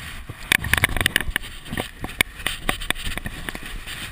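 BMX bike riding around a concrete bowl: a low rumble from the tyres on the concrete under a dense run of irregular clicks and rattling knocks from the bike.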